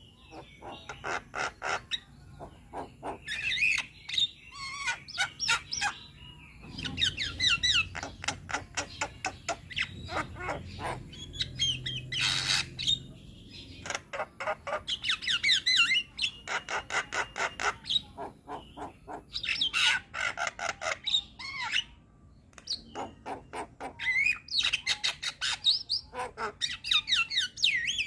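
Javan myna singing a busy, varied song: fast runs of sharp clicks and chatter mixed with short whistled notes, broken by brief pauses.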